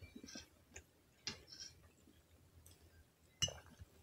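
Quiet eating sounds: faint chewing and mouth noises with a few light clicks and taps of a metal fork on a glass plate, the loudest click about three and a half seconds in.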